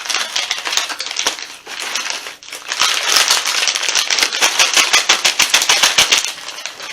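Crunchy hot chips being eaten: dense, rapid crunching and crinkling, busiest in the second half.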